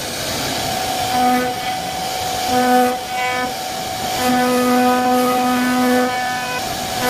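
CNC wood-carving machine running while it carves: a steady whine, with a lower, buzzier tone that cuts in and out several times, holding longest for about two seconds past the middle.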